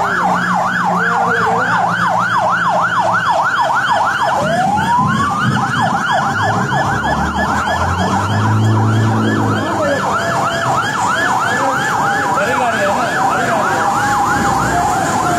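Emergency vehicle siren on a fast yelp, its pitch sweeping up and down about three to four times a second, with a second siren rising in a slow wail about four seconds in. A steady hiss of heavy rain and floodwater runs underneath.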